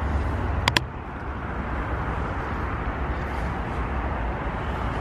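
Steady rumble of motorway traffic passing overhead, with two quick clicks a little under a second in.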